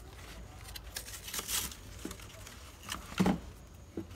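Cardboard beer-can pack being torn open and rustled, then aluminium cans knocking as they are pulled out, the loudest clunk about three seconds in.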